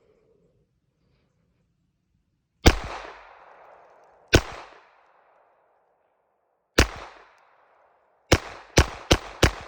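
Ruger Mark II semi-automatic .22 LR pistol firing seven shots, each with a short echoing tail. The first three are spaced a couple of seconds apart; the last four come in quick succession, under half a second apart, near the end.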